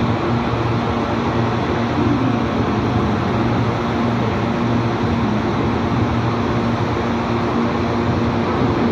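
CPTM Série 8500 electric multiple unit rolling slowly along a station platform: a steady hum of its running gear and traction equipment, with a few low steady tones over the running noise.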